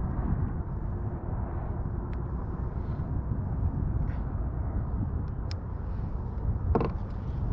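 Steady low rumble and hiss of wind buffeting the microphone, with a few light clicks and a knock near the end.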